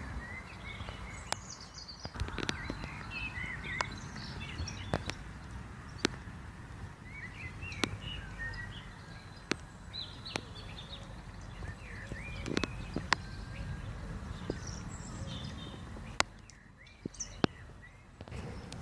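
Small birds chirping and twittering over a low background rumble, with a dozen or so sharp clicks or knocks at irregular intervals.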